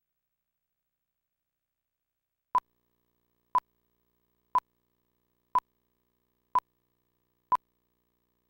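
Countdown-leader beeps: six short, identical high-pitched beeps, one each second, ticking off the numbers of a film-style countdown, after about two and a half seconds of silence.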